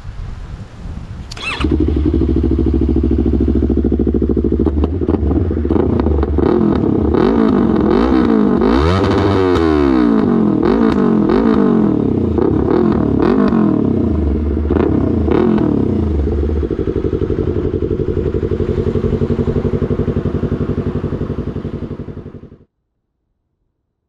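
Yamaha R3's 321 cc parallel-twin through an Arrow aftermarket exhaust, firing up about a second and a half in and idling. In the middle it is revved in a run of quick throttle blips that rise and fall, then settles back to a steady idle before the sound stops abruptly near the end.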